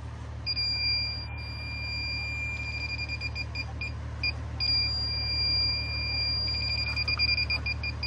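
Inficon TEK-Mate refrigerant leak detector beeping in a high tone. The beeps come so fast that twice they merge into one continuous tone for a couple of seconds, then break up again into quick beeps. Breath blown into the sensor tip sets it off as a refrigerant leak would: the faster the beeping, the stronger the detection.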